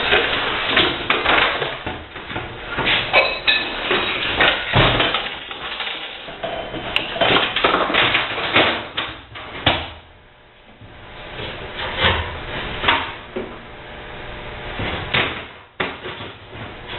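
Irregular knocks, clanks and rattles of dishwasher parts and hand tools being handled as the machine is taken apart, with a quieter lull about ten seconds in.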